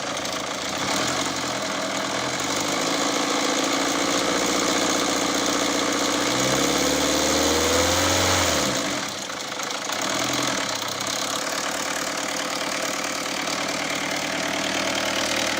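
1.6 HDi four-cylinder turbodiesel engine running, with diesel clatter. The revs climb slowly for several seconds, then fall back to a steady idle about nine seconds in.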